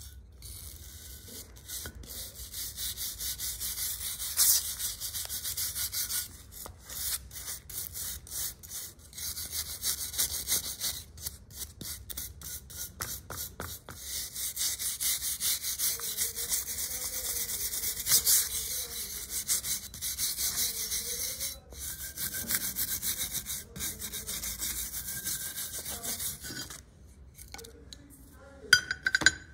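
Hand abrasive work on the steel of a vintage Wilton C-clamp: quick, uneven scratchy rubbing strokes with short breaks, typical of sanding or rubbing down rusty metal. The rubbing stops about two seconds before the end, followed by a couple of sharp knocks.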